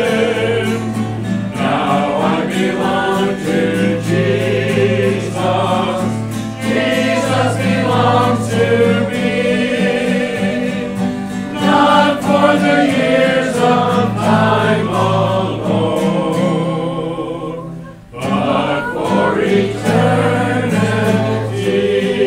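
Church congregation singing a gospel hymn together, accompanied by a strummed stringed instrument, with a short pause between lines about three-quarters of the way through.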